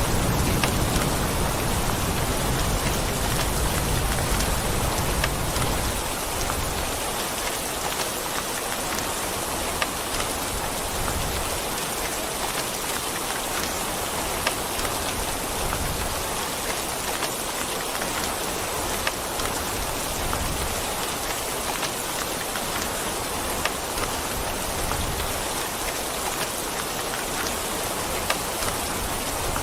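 Steady, dense rain falling on a surface, with individual drops ticking sharply here and there. A low thunder rumble dies away about six seconds in.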